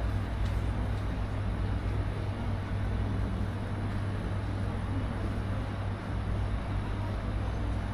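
Steady low rumble with an even hiss over it, unbroken and without distinct events: the background ambience of an open-air café terrace.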